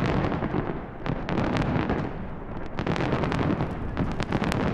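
A barrage of aerial firework shells bursting together: a continuous rumble of booms packed with rapid sharp bangs and crackles, thickening about a second in and again near the end.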